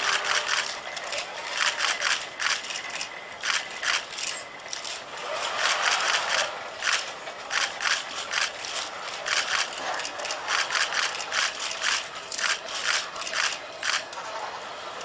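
HRP-4 humanoid robot's electric joint motors and gearing working as it moves through a gymnastic range-of-motion routine, giving runs of rapid clicking and rattling that come and go with its movements.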